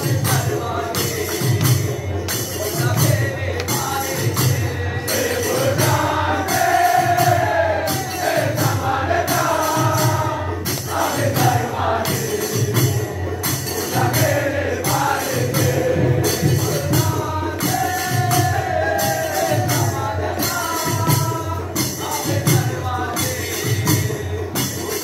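Jhakri, Bhojpuri devotional folk singing: group singing over a drum and jingling percussion keeping a steady beat, about two strokes a second.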